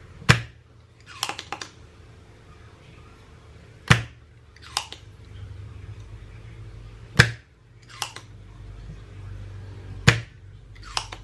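Spring-loaded desoldering pump (solder sucker) fired four times, about every three seconds. Each shot is a sharp snap, followed about a second later by a few softer clicks as the plunger is pushed back down. The pump is pulling molten solder off the pads of the radio's RF final transistor, which is suspected of shorting and is being removed.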